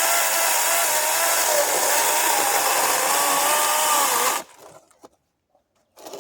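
ReliaRoads 40V battery chainsaw cutting through a small log of old, hard cherry, its electric motor whine wavering and dipping in pitch as the chain bites. The sound stops suddenly about four seconds in.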